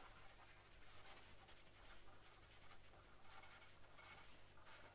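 Faint scratching of a pen writing on paper, in short irregular strokes, over a low steady hum.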